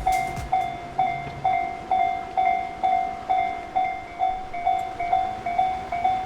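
Japanese railway level-crossing warning bell ringing steadily, about two strikes a second, signalling that a train is approaching and the crossing is closed.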